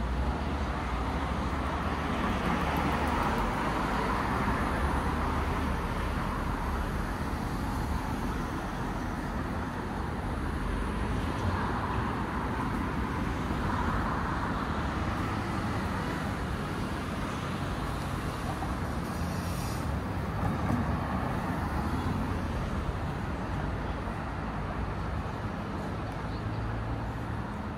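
City road traffic: a steady low rumble with several vehicles passing one after another, each swelling and fading.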